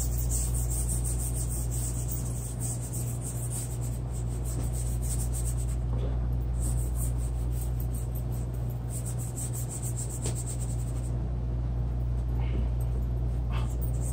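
Repeated scratchy strokes of an artist's drawing tool rubbing across the work surface, coming in runs with brief pauses, over a steady low hum.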